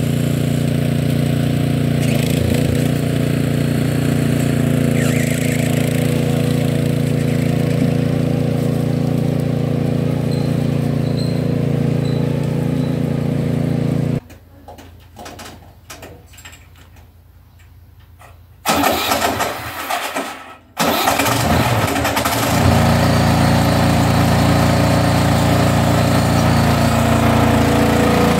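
Small engine of a ride-on garden tractor running steadily. About halfway through the sound drops away for a few seconds, comes back unevenly, then runs on steadily.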